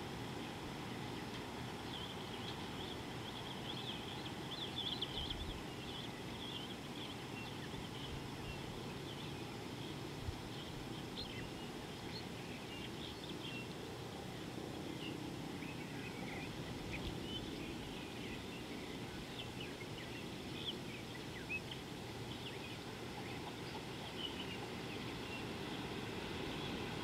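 Small birds chirping and twittering in short high calls, scattered all through, over a steady low outdoor hiss.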